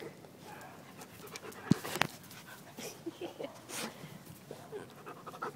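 Bernese mountain dog puppy panting close to the microphone, with two sharp knocks a little under two seconds in.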